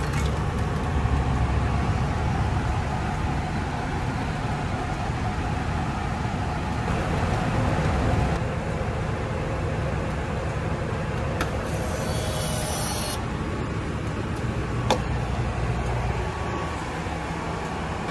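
Steady low rumble of a vehicle in motion, with a single sharp click about fifteen seconds in.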